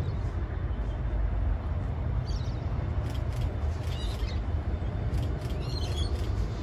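Steady low outdoor rumble, with birds chirping briefly a few times over it.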